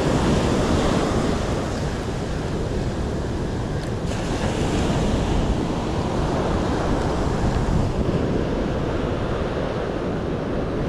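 Ocean surf washing in steadily, mixed with wind buffeting the microphone.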